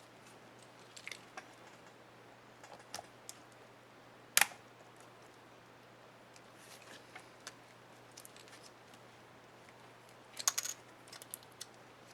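Small plastic clicks and snaps of a laptop keycap and its retainer clip being handled and pressed into place, with one sharp snap about four seconds in and a quick cluster of clicks near the end.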